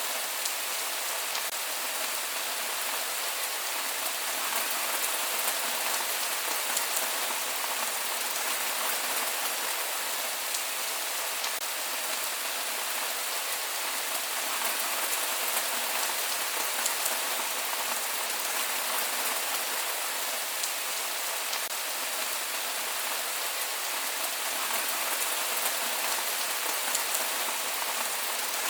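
Steady rain falling on surfaces, an even hiss with scattered individual drop ticks and no thunder.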